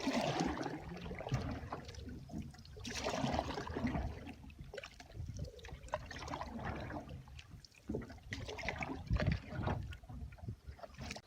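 Canoe being paddled: paddle strokes swishing through the water every few seconds, with drips and small splashes.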